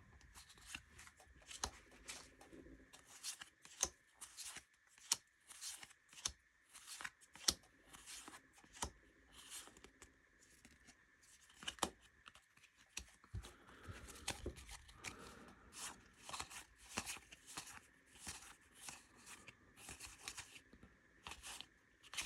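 Trading cards being flicked through by hand and laid onto piles: a run of light, irregular card clicks and slides, a few each second.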